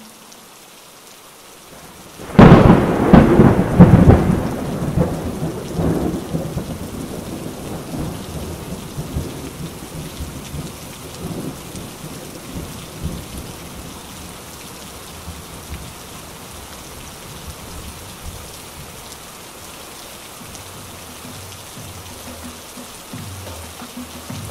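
Thunderstorm: steady rain, then about two seconds in a loud, sudden thunderclap that rolls and rumbles away over the next several seconds, after which the rain keeps falling steadily.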